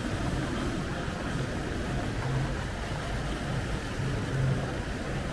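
Steady background noise, an even wash with a faint low hum that comes and goes.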